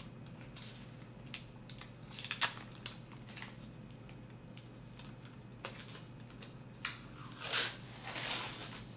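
Clear protective plastic crinkling and rustling as it is peeled off a graphics card by hand, with scattered light clicks and taps from handling the card. The rustling grows loudest and densest near the end.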